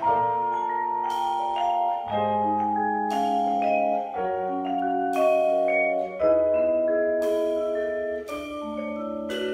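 Vibraphone played with mallets: chords of long ringing notes, a new chord struck about once a second. A double bass and a drum kit accompany underneath.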